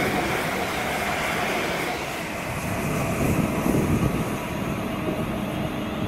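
A train running past on the line: a steady rush of rail and running noise whose high hiss fades about two seconds in.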